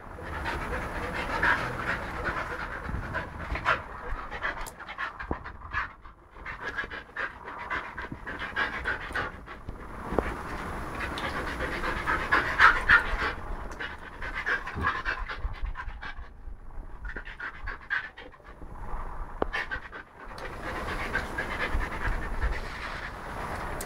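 Siberian husky panting hard and continuously, in uneven puffs with brief lulls.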